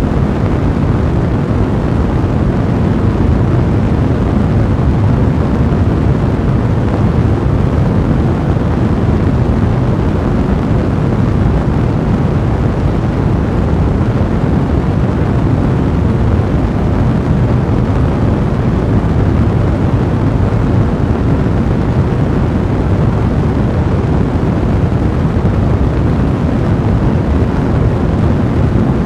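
Fire blazing with a steady, dense low rushing noise and no distinct pops standing out.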